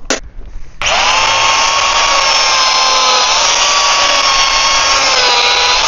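Chainsaw starting suddenly just under a second in and running at full speed, a steady high whine over a dense hiss whose pitch dips slightly a couple of times as the chain meets the wood. The chain is blunt and barely cuts.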